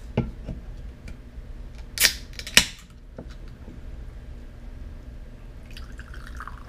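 An aluminium soda can being opened: a short hiss and a sharp snap of the tab about two seconds in. Near the end, carbonated apple soda starts pouring from the can into a glass with a steady fizz. A light knock comes just at the start.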